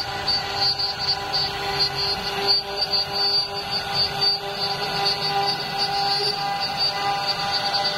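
CNC wood-carving router spindle running as its thin bit carves a relief pattern into a wooden door panel: a steady whine with an uneven cutting noise from the bit in the wood.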